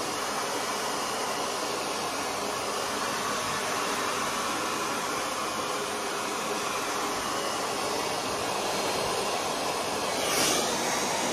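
Hand-held hair dryer blowing steadily, then switched off right at the end, its noise dying away over about a second.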